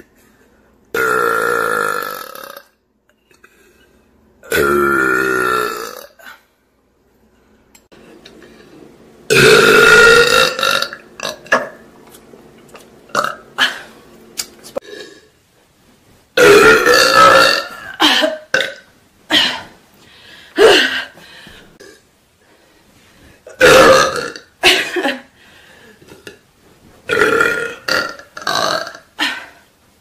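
A woman belching repeatedly: a series of loud burps. Some are short, and some are drawn out over a couple of seconds, with gaps between them.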